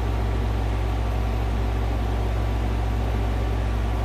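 A steady low hum with a faint, even hiss above it.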